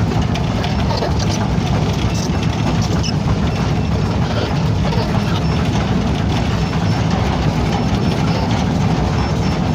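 A heavy engine running steadily with a low, even drone.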